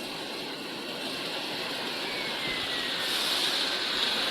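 Air blower of a bubble washing machine running, driving air into the water tank so the water bubbles and churns. A steady rushing noise that grows slightly louder.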